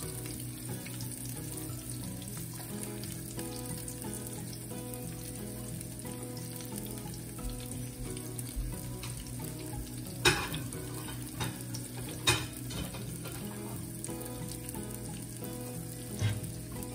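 Hot oil, garlic and meat scraps sizzling steadily in a nonstick frying pan, with a few sharp clicks about ten, twelve and sixteen seconds in.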